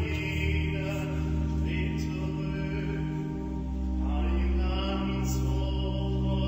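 Men's choir singing slow, sustained chords, with the low bass notes held under the upper voices.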